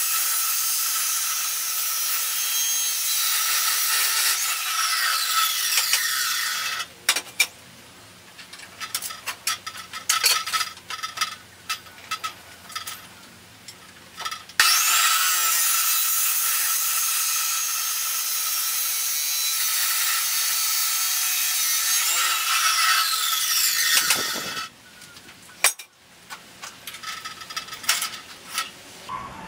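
Abrasive chop saw cutting 2x2 square steel tubing: the motor's whine and the wheel's grinding through the steel run for about seven seconds. Then come scattered metal clicks and knocks as the tube is reset, and about halfway through the motor whines up again for a second cut of about ten seconds, followed by more clanks.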